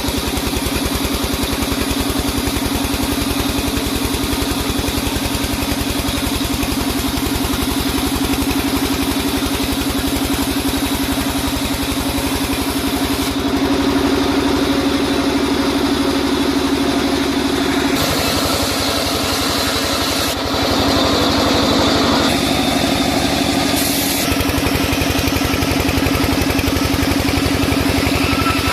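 Sawmill machinery running steadily, a constant motor hum with a fast, even pulse; its sound shifts abruptly a few times.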